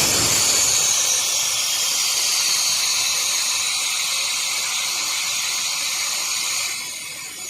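Pressurised gas blowing out of an air-conditioner outdoor unit's piping with a loud, steady hiss, which eases off near the end.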